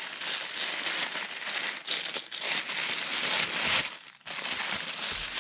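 Tissue wrapping paper crinkling and rustling as hands unfold it, with a brief pause about four seconds in.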